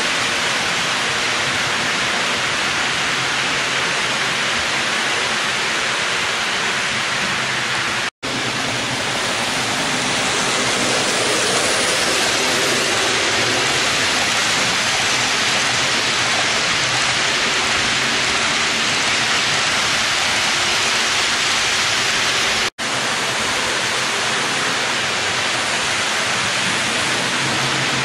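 Steady, even rushing hiss with no clicks or rhythm in it, broken by two momentary dropouts about eight and twenty-three seconds in.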